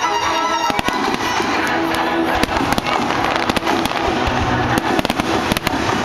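Aerial fireworks shells bursting, many sharp bangs in quick succession, over music with long held notes.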